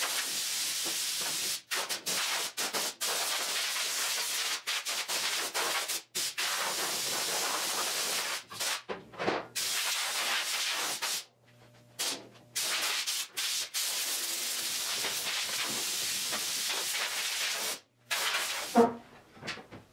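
Compressed-air blow gun hissing in long bursts as it blows dust off the car body, cut off briefly many times as the trigger is released, with a longer pause about eleven seconds in. A single knock near the end.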